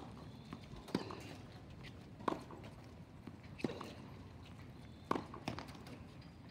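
Tennis ball struck with rackets in a rally, a sharp pop every second and a half or so, six in all, the last two close together.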